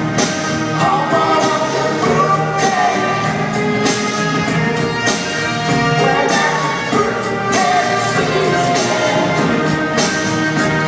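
Live pop-rock band playing, with sung vocals over a steady drum beat.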